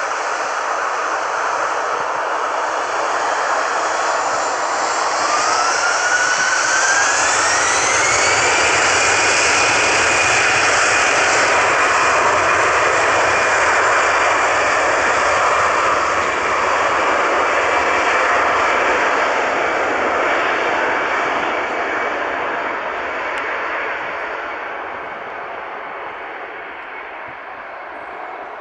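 Airliner's engines throttling up: a whine rises in pitch a few seconds in, then holds steady over a loud engine noise that fades away near the end.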